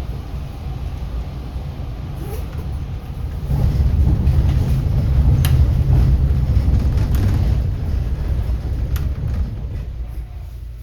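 City bus running, heard from inside the bus: a steady low engine and road rumble that grows louder about three and a half seconds in, then eases off toward the end, with a few faint rattling clicks.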